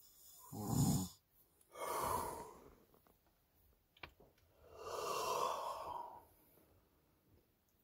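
A sleeping man snoring, picked up by a phone microphone inside a truck cab: a loud, low snore about half a second in, then a noisy breath around two seconds and a longer one about five seconds in, with a single sharp click near four seconds.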